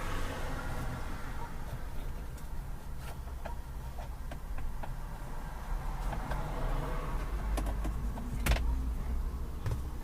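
Scattered clicks and handling knocks inside the Jeep Wrangler's cabin as the installer works the dash area and searches for a dropped screw, over a low steady rumble, with one sharper knock near the end.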